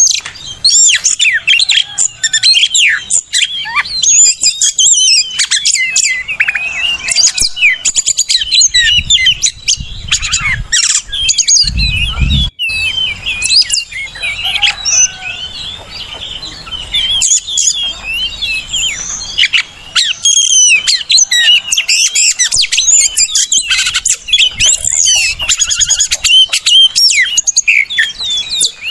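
Oriental magpie-robin (kacer) singing without pause: a rich, varied song of clear whistles, chirps and rapid trills. A short low rumble is heard about twelve seconds in.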